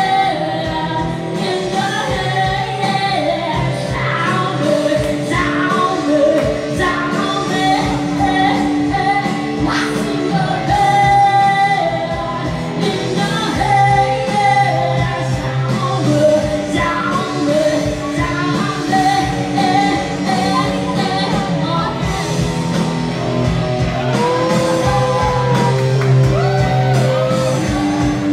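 Live band music: a woman singing into a microphone, accompanied by an electric guitar, amplified in a large room.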